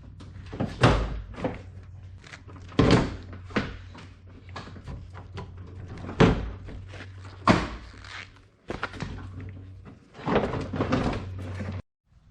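Irregular sharp knocks and clunks, about a dozen, from the car's parts and tools being handled as its rear bumper is taken off, with a denser clatter near the end over a steady low hum.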